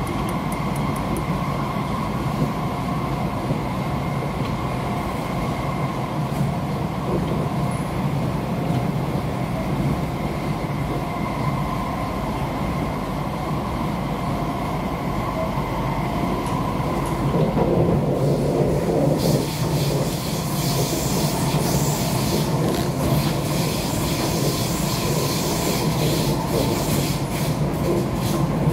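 Kawasaki–CRRC Sifang C151C MRT train heard from inside the carriage while it runs at speed: a steady rumble with a steady whine. About two-thirds of the way through, a louder high hiss with rapid clicks of the wheels on the track joins in.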